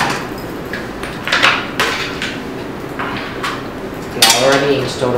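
Clicks and knocks of a plastic printer tray being fitted into a photo booth's metal cabinet, then a louder rattling metal clatter about four seconds in as the cabinet's side door is swung shut.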